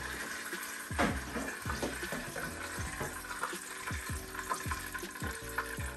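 Hot frying oil sizzling and crackling steadily in a pan as whole fried snapper is lifted out, with a light knock about a second in.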